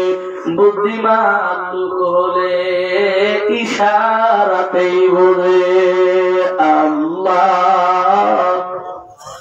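A man's voice singing a drawn-out melodic chant, holding long notes, with a short break near the end.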